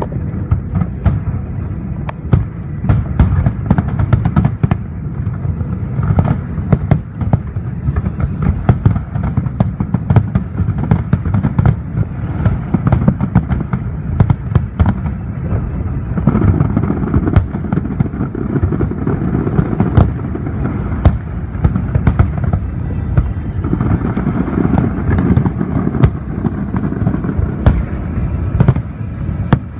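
Fireworks display: a continuous rapid barrage of shell bursts, booms overlapping each other many times a second with crackling.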